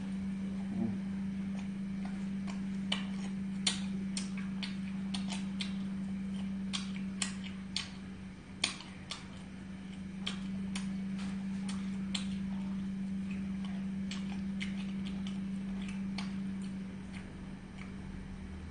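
Scattered, irregular sharp clicks over a steady low hum, the clicks coming thickest in the first half.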